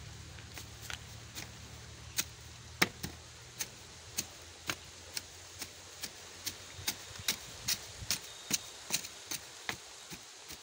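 Wooden pestle pounding dry grain in a metal pot: sharp knocks about two to three a second, soft at first and then stronger and steady from about two seconds in.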